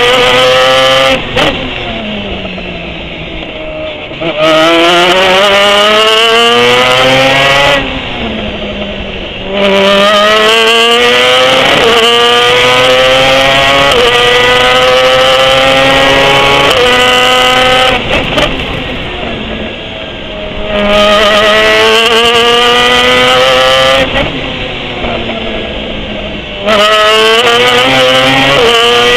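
Pro Mazda open-wheel race car engine, heard onboard, at full throttle with its pitch climbing through the gears and dropping at each upshift. Four times it goes quieter, lifting off and downshifting for corners, then accelerates hard again.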